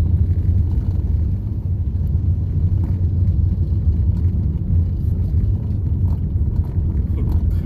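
Steady low rumble of riding in a moving vehicle: engine, road and wind noise heard from on board.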